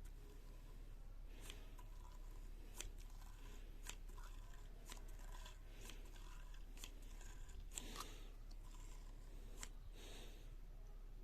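Faint, irregular light clicks and taps, about one every second or two, over a low steady hum.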